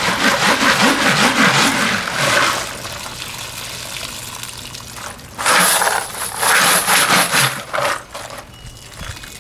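Rinse water being swirled and poured off a heavy container of washed brass cartridge cases, the metal cases rattling and clinking as the water runs out. It comes in spells, with two loud splashing bursts in the second half.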